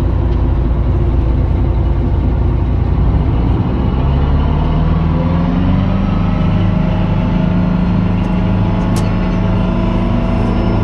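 Tour boat's engine running steadily, its pitch rising about four seconds in as it speeds up, then holding.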